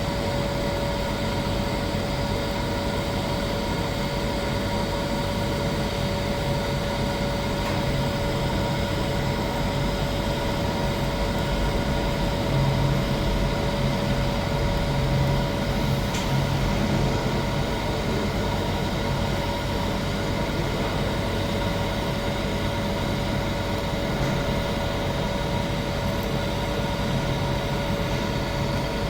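Welding arc burning continuously during a pipe root pass: a steady, unbroken crackle and hiss, with a few constant tones running underneath.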